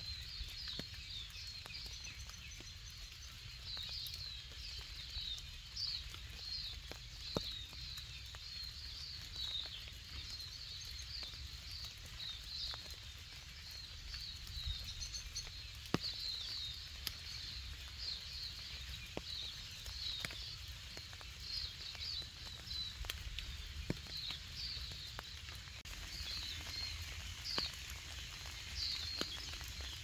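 Small birds chirping and twittering without a break, many short high calls overlapping, with scattered sharp ticks of rain drips and a low steady rumble underneath.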